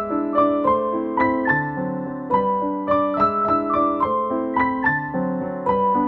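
Background piano music: a steady, flowing melody of notes struck about three times a second, each ringing on over the next.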